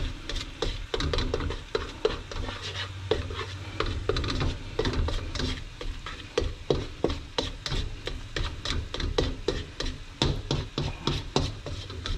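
A nylon spatula scraping and tapping against a nonstick frying pan as scrambled eggs are stirred and broken up, with irregular clicks several times a second. The eggs sizzle in olive oil underneath, half-cooked.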